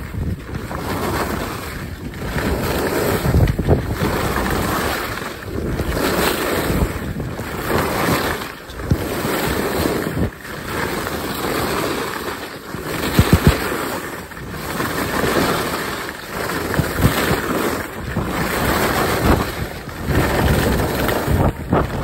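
Wind rushing over the microphone and skis scraping on packed snow during a fast downhill ski run, the noise swelling and fading every couple of seconds with the turns. A quick double knock comes about halfway, from the skis hitting bumps on the slope.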